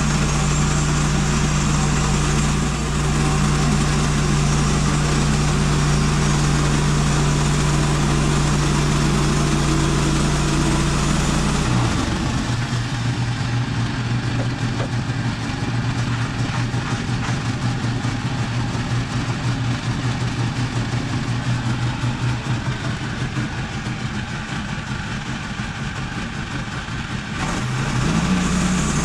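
Portable sawmill's gas engine running steadily. About twelve seconds in, its pitch drops and it runs rougher for roughly fifteen seconds as it comes under load, then it picks back up near the end.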